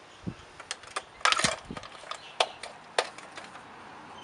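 Metal hand tool clicking and clinking against a VR6 engine cover and its fastener. A cluster of clatter comes just over a second in, followed by a few single sharp clicks.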